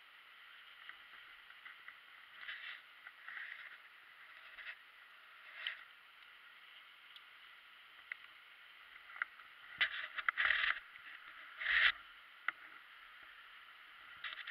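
Muffled rustling and bumps of a rider's gloved hands handling the bike and gear, heard through a helmet camera over a faint steady hiss, with louder knocks and buffeting about ten and twelve seconds in.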